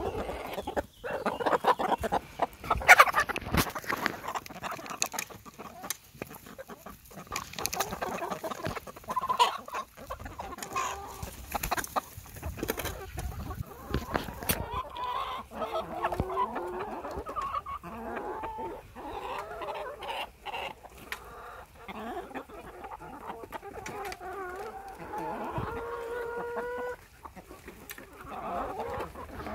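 A flock of hens clucking as they feed, with many sharp taps and clicks through the first half. Longer, drawn-out calls stand out in the second half.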